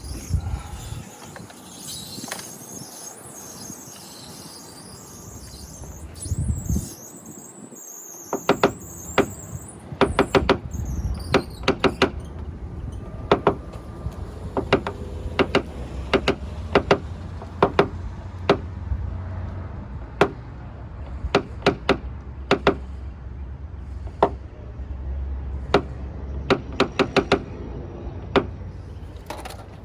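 High squeaking for the first several seconds, then a long run of sharp, ringing taps at uneven spacing, typical of paintless dent repair tapping down a car body panel.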